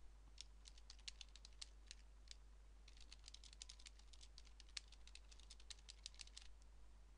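Faint typing on a computer keyboard: a short, sparse run of keystrokes, a brief pause, then a quicker, longer run that stops shortly before the end.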